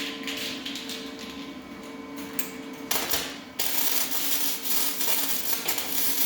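Welder crackling and sputtering while welding a patch into car-body sheet metal. It comes in short bursts at first, then runs as a steady, continuous crackle from about three and a half seconds in.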